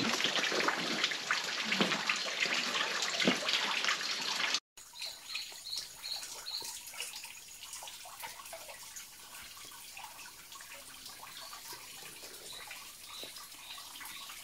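Steady rushing and trickling of a small jungle waterfall spilling over rock into a pool. It is louder for the first four and a half seconds, then after a sudden cut it goes quieter, with a few short high chirps over it.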